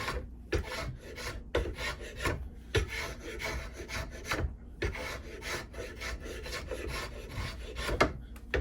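A hand tool rasping wood on a cant hook's wooden handle held in a vise: repeated short scraping strokes, roughly two a second, cutting down a knob on the handle.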